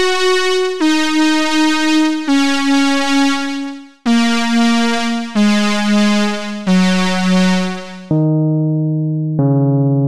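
Electronic music played on a synthesized electric-piano sound: a slow line of long held notes, each a step lower than the last, turning softer and duller in tone about eight seconds in.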